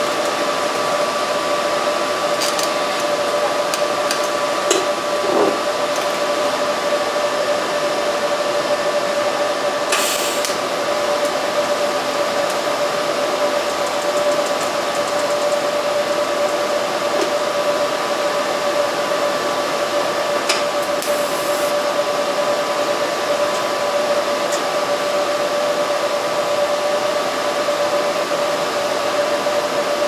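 Steady whirring hiss with a constant whine from a running welding machine during TIG tack welding of stainless steel, with a few faint metal clicks and taps.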